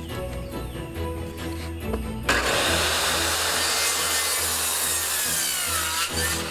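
Electric power saw cutting through a piece of 2x4 lumber, starting abruptly about two seconds in and running for about four seconds, its motor pitch dipping and recovering under the load of the cut. Background music plays underneath.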